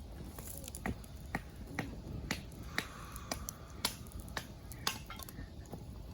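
Fire crackling: sharp, irregular pops, about two a second, over a steady low rush.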